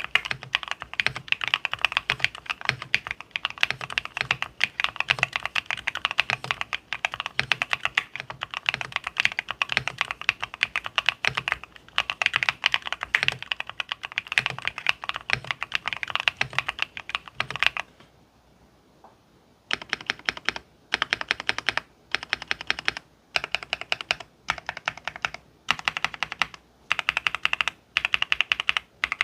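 Typing on a MonsGeek M3 Pro mechanical keyboard fitted with BSUN Green switches: fast, continuous keystrokes for most of the time. After a brief pause about two-thirds of the way in, the keystrokes come in short bursts with small gaps between them.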